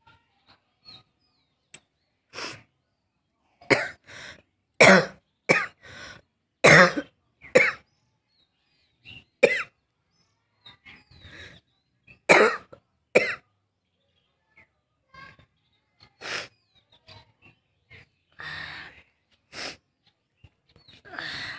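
A person coughing in short separate fits, with throat clearing between, the loudest coughs clustered a few seconds in and again about halfway. It is a real cough from a heavy cold with a burning throat, by the cougher's own account.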